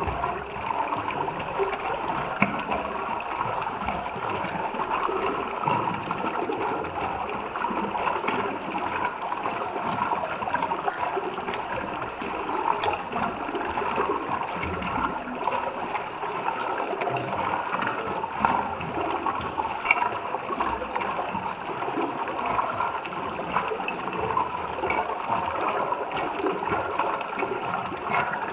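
Running water bubbling and gurgling steadily, like a small stream flowing over stones.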